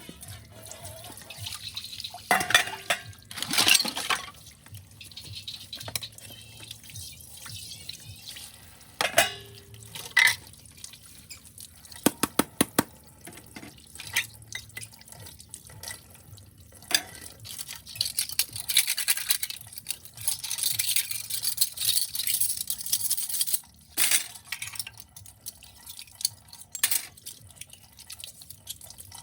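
Dishes being washed by hand in a sink: water dripping and running from the tap, with plates and glassware clinking and knocking against each other. The water runs louder for several seconds past the middle.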